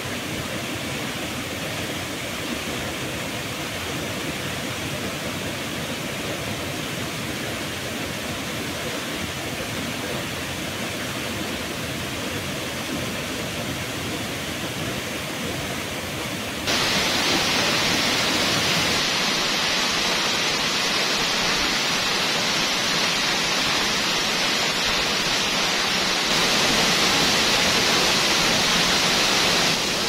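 Waterfall: a steady rush of falling water. A little past halfway it suddenly jumps louder and hissier, and it jumps again a few seconds before the end.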